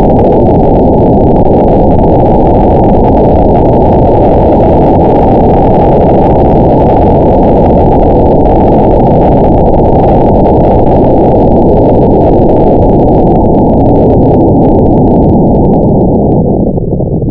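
Model rocket in flight heard through its onboard camera's microphone: a loud, steady rushing roar of motor and airstream, turning uneven near the end.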